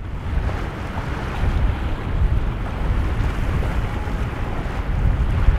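Steady wind buffeting the microphone, a heavy low rumble over the wash of rough sea water in a boat inlet.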